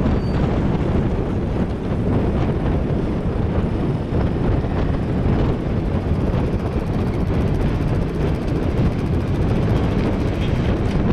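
Wind buffeting the microphone: a steady rush of noise, heaviest in the low end, with no distinct engine note standing out.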